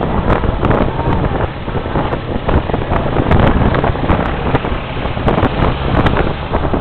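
Wind buffeting the microphone in loud, gusting rumbles that vary in strength throughout.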